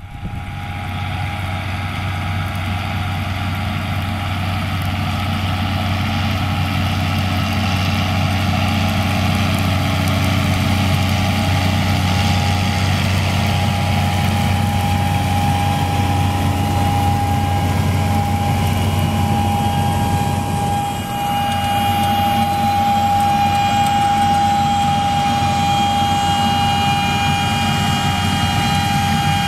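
John Deere 6920 tractor's six-cylinder diesel engine running steadily under load while pulling an air seeder, with a steady high whine over the engine hum that grows stronger about halfway through.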